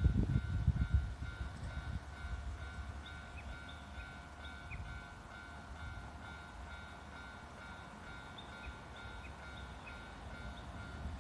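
Japanese railway level-crossing warning bell ringing over and over in an even beat. A Kintetsu Nara Line train's low rumble across the crossing fades out over the first two seconds.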